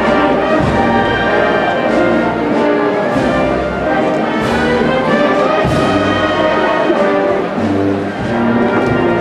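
Brass band playing a slow Holy Week processional march, with held chords and a few ringing percussion strikes.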